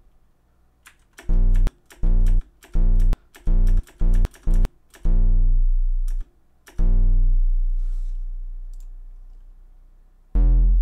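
Synthesized low plucked-string notes with a square-wave shape, played on a computer keyboard through a homemade program: about ten notes in an uneven rhythm. Most are cut off abruptly the moment a key is released, and two are left to ring and fade slowly. Light computer-key clicks sound with them.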